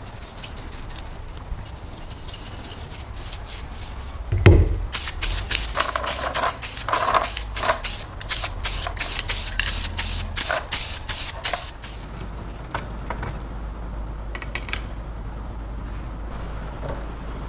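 A knock, then rhythmic abrasive scraping strokes, about two a second, as a rusty metal stapler part is rubbed down by hand. The strokes stop about twelve seconds in, leaving a few faint ones.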